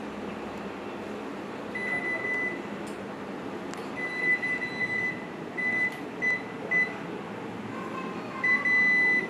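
Microwave oven running with a steady hum, with a series of electronic beeps at one pitch, some short and some held for nearly a second.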